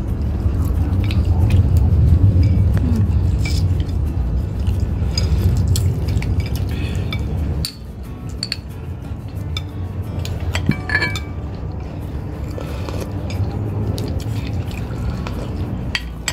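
Metal spoon clinking and scraping against a glass bowl and crab shells during a meal, in scattered light clicks. A steady low rumble underneath cuts off suddenly about halfway through.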